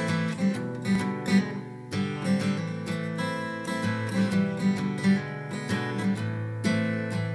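Crafter acoustic guitar strummed in an instrumental passage, steady rhythmic strokes with a change of chord every couple of seconds.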